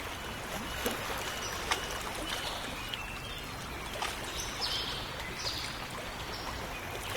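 Running water, a stream or trickle, splashing steadily, with short high chirps scattered over it.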